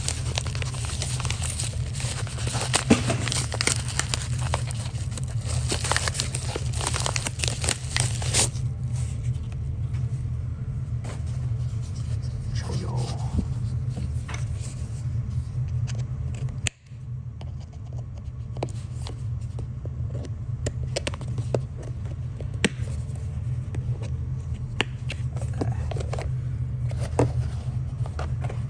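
Plastic packaging being torn open and crinkled, dense crackling for about the first eight seconds. After that come scattered light clicks and taps as a small fidget toy is handled, over a steady low hum.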